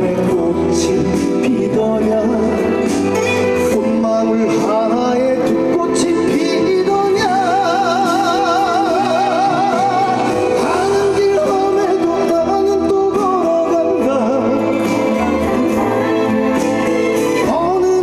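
Trot song played live through a stage PA, with a long vibrato note held in the middle.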